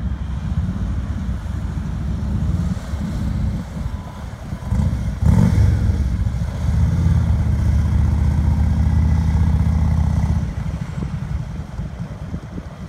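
Motorcycle trike engine passing at low speed, towing a casket trailer. Its low, steady rumble swells about five seconds in, holds for several seconds and fades after about ten seconds, over traffic noise.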